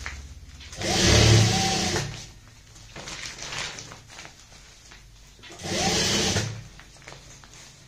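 Sewing machine stitching in two short runs, about a second in and again near six seconds, each starting with a rising whine. Fabric rustles as it is repositioned by hand between the runs.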